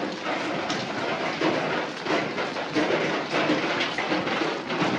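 Rain falling heavily: a dense patter of separate drop impacts over a steady hiss, swelling and easing a little.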